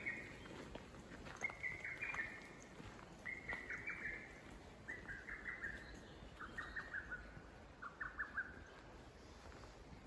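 Japanese bush warbler singing a run of six short phrases, about one a second. Each phrase is a clear note that breaks into a quick chatter, and the run steps down in pitch from phrase to phrase.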